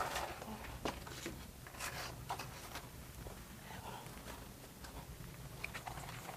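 Faint scattered clicks, taps and rustles of someone moving about and handling cardboard signs, over a low steady room hum.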